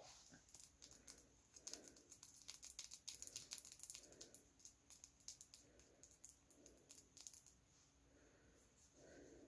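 Near silence with faint, rapid, irregular clicking of long acrylic fingernails tapping against each other; the clicking dies away near the end.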